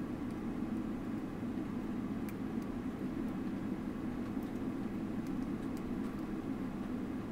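Steady low drone inside the cabin of a Boeing 777-300ER as it taxis, with a few faint clicks now and then.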